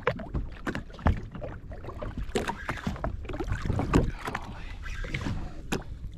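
Water slapping and knocking against the hull of a drifting jet ski in irregular bursts, over a low rumble of wind on the microphone.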